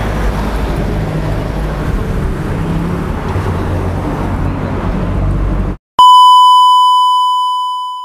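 Steady low engine rumble for about six seconds, then a sudden cut to silence and a single clear electronic beep tone that starts loud and fades out over about two seconds.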